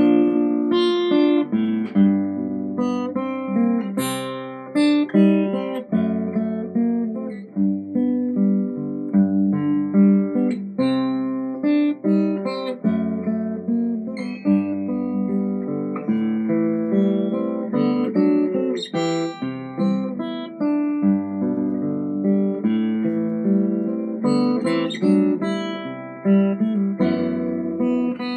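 Restored 1907 Martin 00 acoustic guitar, spruce top with mahogany back and sides, being played: chords strummed and picked in a steady run, each ringing on into the next.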